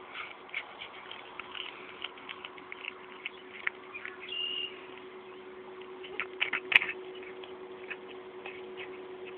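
Domestic cat chewing a field mouse: a run of small crunches and clicks, densest and loudest about six to seven seconds in, over a steady low hum. A short high chirp sounds about halfway through.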